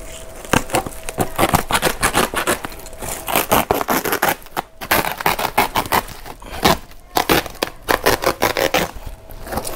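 Box cutter slicing and ripping open a woven plastic sack wrapped around a bale: a run of rapid, irregular crackling and scraping as the blade drags through the plastic weave.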